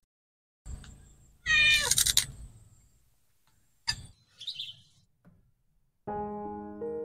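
A cat meows once, loud and drawn out, about a second and a half in, followed by a few faint clicks. Soft piano music starts near the end.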